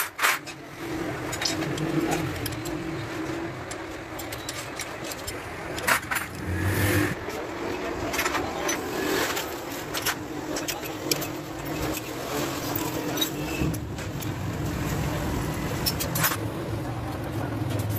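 Scattered metallic clinks and knocks of hand tools and steel parts as a Honda CG 125 motorcycle's rear wheel and brake rod are fitted, over a steady low hum.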